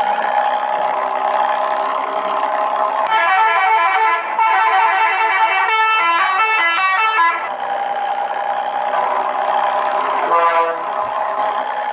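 Multi-tone vehicle horn playing a quick stepping melody of short notes for about four seconds, with a short second burst near the end, over a steady idling engine.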